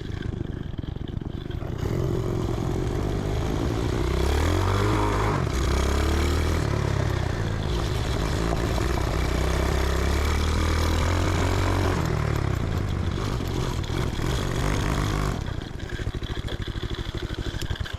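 Homemade reverse trike's 125cc engine running under way. It revs up about four seconds in, holds a steady pace with some clatter, then drops to a pulsing idle near the end.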